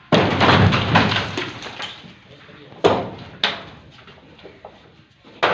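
Timber shuttering being stripped: a loud clatter of boards and props falling for about a second, then three sharp bangs of wood being knocked loose.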